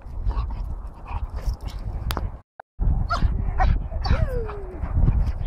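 German shepherd yipping and whining in excitement during play, with a longer falling whine about four seconds in. A low rumble of wind on the microphone runs underneath, and the sound drops out briefly about halfway.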